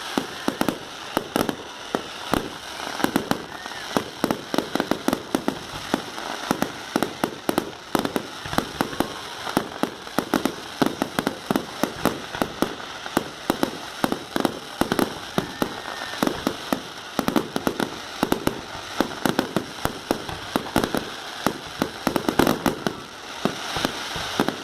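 Fireworks display going off: a dense, irregular run of bangs and crackles, several a second, over a steady rumble.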